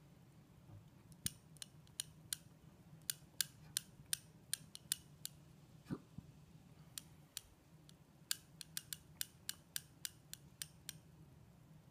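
Laptop keyboard keys being typed on a 13-inch MacBook Pro: quick, irregular clicks in two runs, with a pause and a single soft knock around the middle, consistent with entering a login password.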